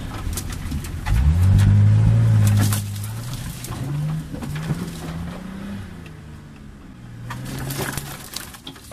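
Off-road 4x4's engine revving up hard about a second in, then running at shifting revs and easing off near the end. Branches and brush scrape and knock against the body, most around the last second or two.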